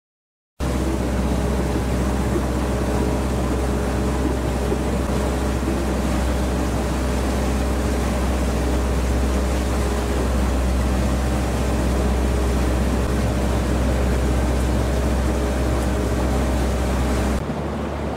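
A powerboat's engine running steadily under way, with water and hull noise, heard from inside the half cabin. It starts abruptly about half a second in, and near the end it drops suddenly to a quieter, duller sound.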